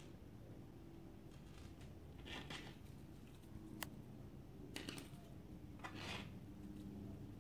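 Faint handling of plastic beads on nylon beading line: a few short rustles and small clicks as beads are threaded and the line is pulled through, with one sharp click a little before the middle.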